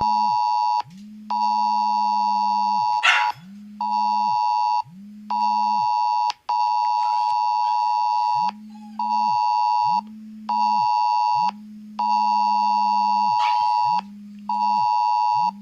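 Indian government emergency alert test sounding on a mobile phone: a loud, shrill alert tone beeping on and off in long and short pulses, alternating with the phone's low vibration buzz. Two short sharp noises cut in over it, the louder about three seconds in.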